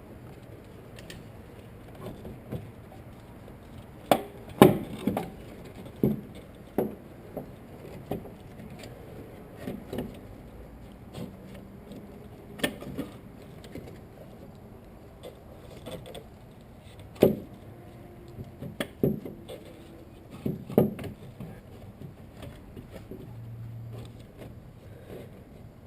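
Metal tools and car parts clinking and knocking at irregular intervals during hand work in an engine bay, with a few louder clanks in short clusters.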